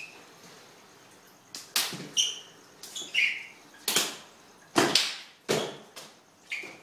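Hands and forearms slapping and thudding together in close-range wing chun sparring: about ten sharp hits in quick flurries from about a second and a half in. Footfalls and short squeaks of trainers on a wooden floor are mixed in.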